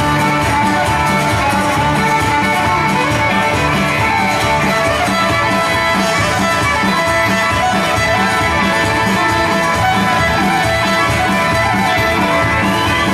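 Fiddle tune for jigging, with guitar backing that keeps a steady, even beat.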